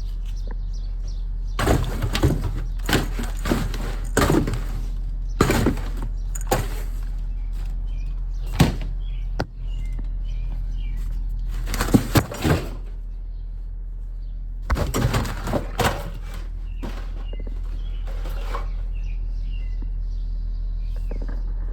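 Irregular bangs and rattles in short clusters, like things being knocked about in a garage, over a steady low hum, with faint bird chirps in between.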